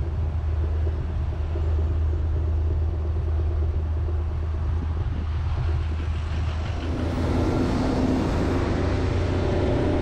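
A vehicle on the move, heard from inside the cab: a steady low engine drone with road noise. About seven seconds in, a fuller engine note with more middle tones joins in.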